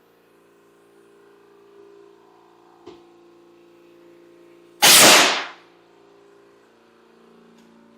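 Bead blaster firing into a 35-inch tire to seat its bead on a beadlock wheel: a sudden, very loud rush of compressed air about five seconds in, lasting under a second and dying away.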